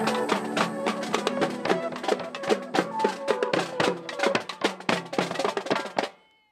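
Marching drumline of snare drums, tenor drums and bass drum playing a rapid cadence of dense, sharp strokes, fading out about six seconds in.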